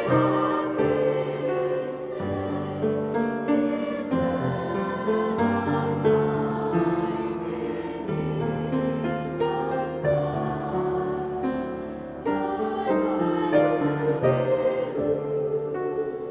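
A mixed high school choir singing in parts, with upright piano accompaniment, holding sustained notes that change roughly every second.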